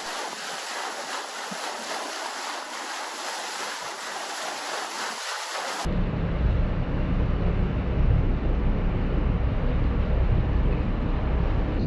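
Boat underway: a steady rush of water and wind hiss, then about six seconds in it switches abruptly to a louder, steady low rumble of the engines with water noise.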